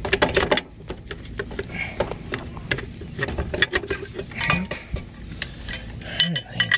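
Irregular metallic clinks and rattles of steel hitch parts being handled: a chain swinging against the linkage bars and a steel pin being worked out of its bracket on a Wheel Horse garden tractor's implement hitch.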